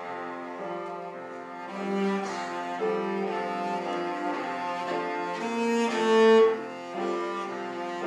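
Cello played with the bow: a slow melody of long, sustained notes, swelling loudest about three-quarters of the way through before a short dip.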